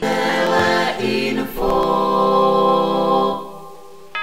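A group of voices singing a cappella: a short sung phrase, then a held chord that fades out near the end.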